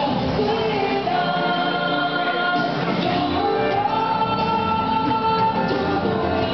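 A song with sung vocals plays, the voices holding long notes over the accompaniment.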